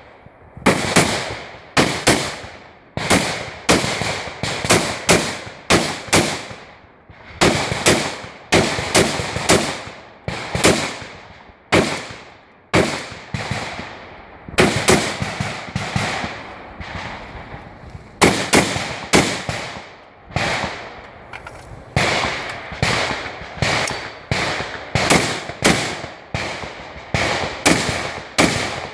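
Rifle shots fired in a long string at an uneven pace of about one to two a second, some in quick pairs, each crack trailing off in a short echo.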